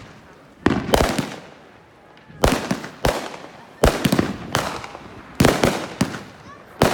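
Fireworks going off: a string of about ten sharp bangs at irregular spacing, some in quick clusters, each with a short echoing tail.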